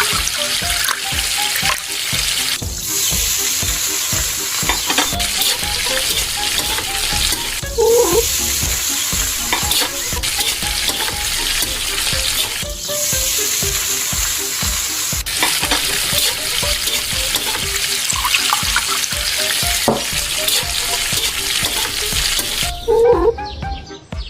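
Food sizzling in a hot pan or wok while being stirred, a steady frying hiss that swells louder three times, each for a couple of seconds.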